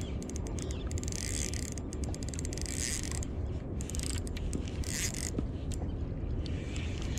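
Spinning reel working against a hooked queenfish, giving off runs of rapid clicks and short hissy whirs, with a low steady rumble underneath.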